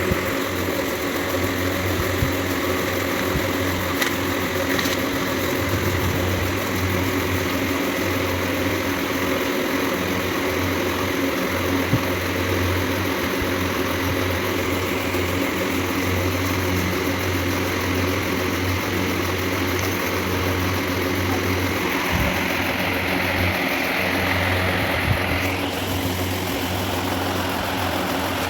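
A machine running steadily with a constant low hum, with a few faint clicks over it.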